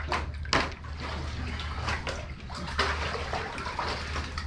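Seawater sloshing and splashing as a man ducks under the surface, with two sharp splashes right at the start and softer lapping after, over a steady low hum.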